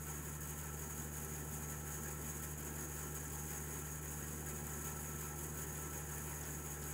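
Band saw running with a steady hum as a wooden piece is fed through its blade.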